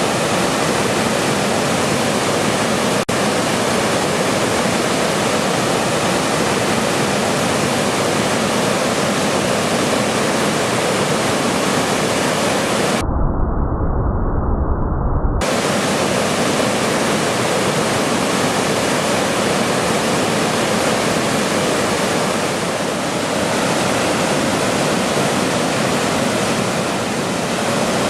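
Waterfall: a loud, steady rush of falling water. About halfway through, for a couple of seconds, the rush turns muffled with a deep low rumble, then returns to its full sound.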